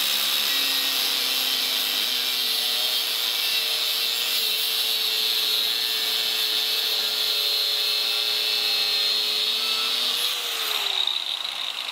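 Angle grinder with a cut-off disc cutting through half-inch mild steel round bar: a steady, loud grinding hiss over the motor's whine. About ten seconds in the cut ends and the motor is released, its whine falling as the disc spins down.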